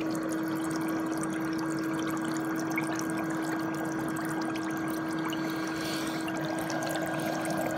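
Electric foot spa running: a steady motor hum under the constant bubbling of its air jets churning the water.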